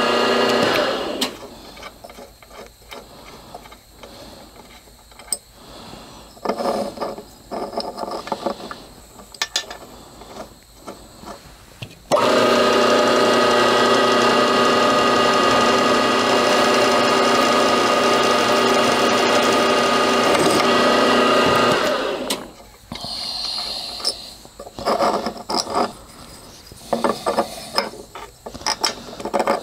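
Milling machine spindle running a drill bit in a chuck, drilling bolt holes in an aluminium gearbox casting. It runs as a steady hum briefly at the start and again for about ten seconds in the middle. In between and near the end there are broken stretches of shorter machine and handling noises.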